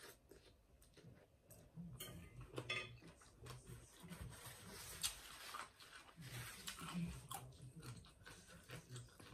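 A person slurping thin rice noodles from a bowl of broth and chewing them, soft wet mouth clicks throughout, busier after the first couple of seconds.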